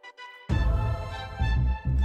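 Background music: a quiet keyboard-like passage gives way, about half a second in, to a loud section with heavy bass.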